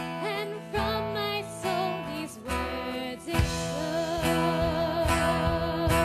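A song: a singer's wavering voice over instrumental accompaniment, which fills out with a heavier low end about three seconds in.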